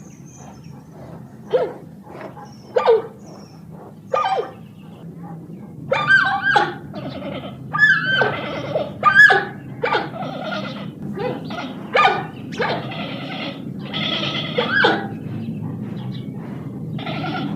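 Giant panda calling: short, pitch-bending bleats and squeals, a few spaced out at first, then a rapid string of calls from about six seconds in.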